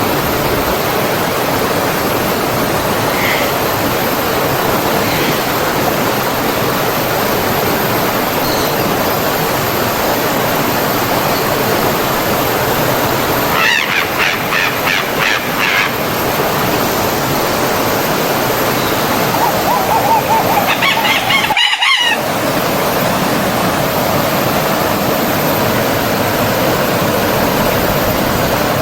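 Stream water flowing and splashing steadily, with a bird calling twice, at about the middle and again a few seconds later.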